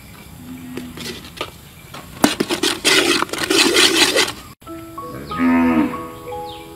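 Metal spatula scraping and stirring a thick sauce in a steel wok, with sizzling, loudest from about two to four and a half seconds in. Then background music starts, with one short, loud, low call.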